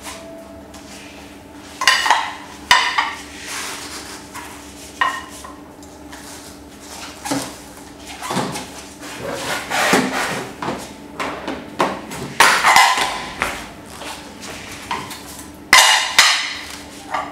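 Hard knocks and clatters of a self-balancing scooter's bare shell and central hinge being handled and set down on plastic blocks on a hard floor, about eight separate knocks with quieter rattling between. A steady low hum runs underneath.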